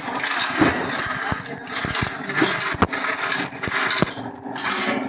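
Scattered sharp metallic clicks and knocks of hand tools working on a transformer's casing and coils, over a steady background din.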